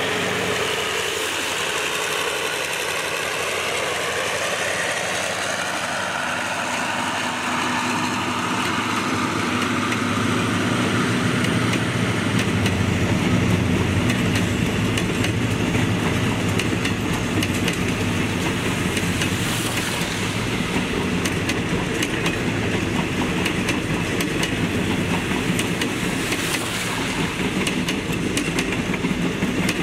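A train departing past: its Hitachi diesel-electric locomotive goes by with a falling whine over the first few seconds, then passenger coaches roll past with a steady low rumble and wheels clicking over the rail joints.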